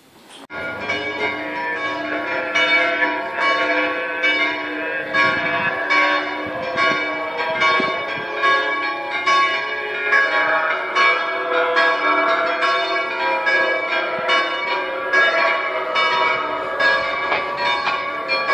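Several church bells ringing together, their strokes overlapping at about two a second, starting abruptly just after the start.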